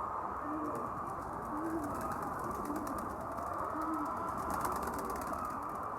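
Flock of chickens in a poultry house, a steady dense din of low calls with a short low crooning call repeating about once a second, over a faint rapid ticking.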